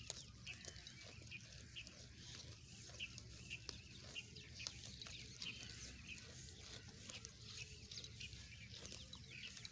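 Sheep grazing right beside the microphone: faint quick clicks and crunches of grass being torn off and chewed, with small birds chirping in the background.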